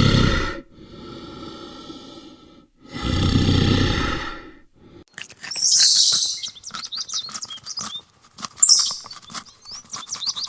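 An animal's long, loud calls with a rich low pitch, heard twice, followed from about five seconds in by birds chirping in quick high twitters with sliding notes.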